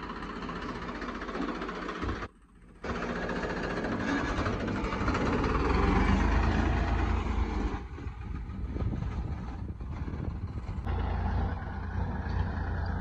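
Farm tractor's diesel engine running steadily under load while it drags a kraha, a soil-levelling scraper blade, through the field. The sound drops out briefly about two seconds in.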